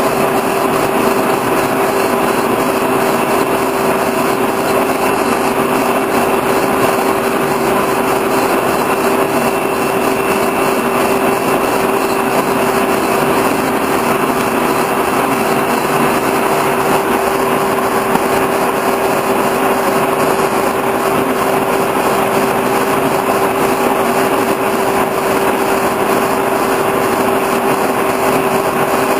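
Horizontal boring mill running steadily, its spindle turning a metal shaft, with a constant mid-pitched whine from the drive over a steady mechanical rush.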